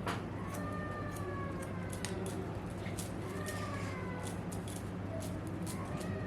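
Scissors snipping hair in short irregular cuts over a steady low hum. Faint drawn-out calls rising and falling in pitch sound in the background several times.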